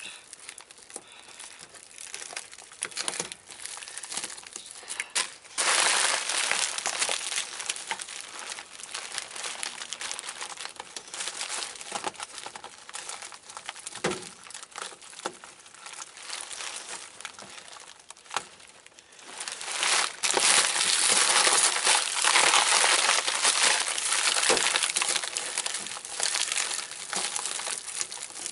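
Black plastic garbage bag and foil flexible duct crinkling and rustling as they are handled and worked onto a vent, in stretches, loudest about six seconds in and again from about twenty seconds in.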